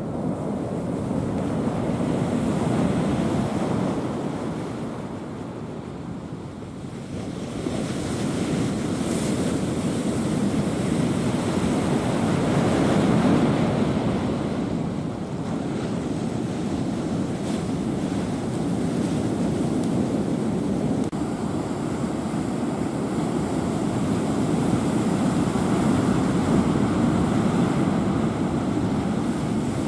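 Typhoon wind and sea making a continuous noise that swells and eases every few seconds, with wind buffeting the microphone.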